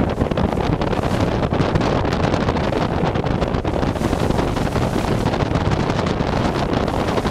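Wind buffeting the microphone on a boat at sea, a steady loud rushing noise, with boat and wave noise beneath it.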